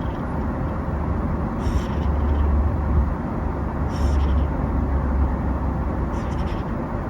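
Sleeping Genetta (Bengal × Munchkin) kitten snoring, three breathy snores a little over two seconds apart, over a steady low rumble.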